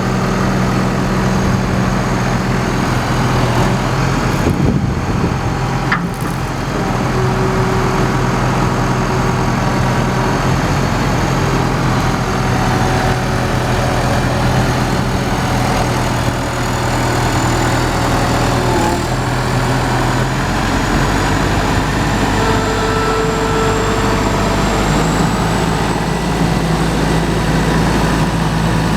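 Gehl 7810E skid steer's diesel engine running steadily, its pitch stepping up and down a few times as the engine speed changes.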